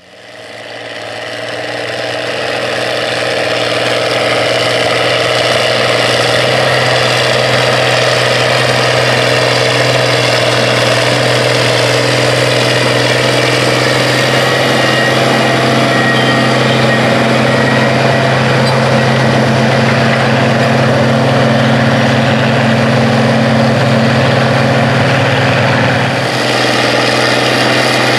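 International Harvester tractor engines running steadily under load while pulling moldboard plows through the ground. The sound fades in over the first few seconds and changes a little near the end as another tractor takes over.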